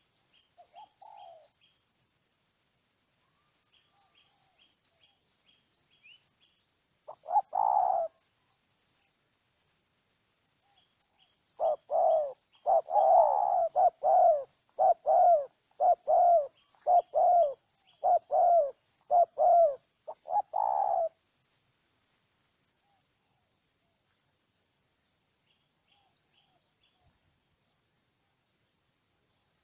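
Spotted dove cooing: one call about seven seconds in, then a run of about a dozen loud coos from about twelve to twenty-one seconds. Quick high-pitched chirping goes on throughout.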